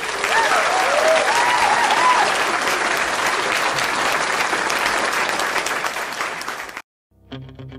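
Crowd applauding and cheering, with wavering cheers in the first two seconds. It cuts off suddenly near the end.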